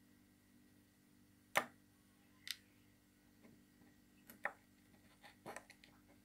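Small sharp clicks and taps of metal fishing-reel parts being handled by hand: one crisp click about a second and a half in is the loudest, another follows a second later, then a quicker run of lighter clicks near the end.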